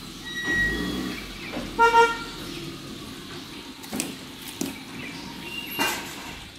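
Giant panda chewing bamboo, with a few sharp cracks of stalks breaking in its teeth about four to six seconds in. A brief horn-like toot sounds about two seconds in, louder than the chewing.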